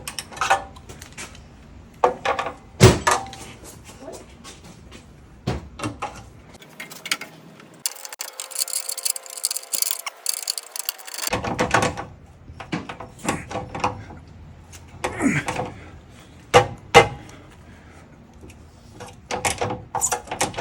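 Metal tools clanking and knocking: a wrench and oxygen sensor socket being fitted and strained against a seized exhaust O2 sensor, in irregular clicks and thunks.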